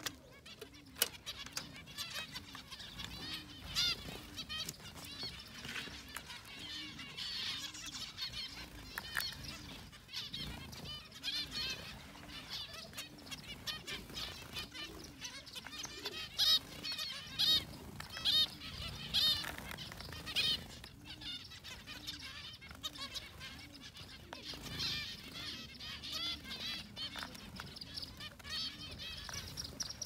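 A flock of zebra finches calling with many short, repeated calls and fluttering their wings as they come down to feed. The calls come in clusters and are busiest and loudest about halfway through.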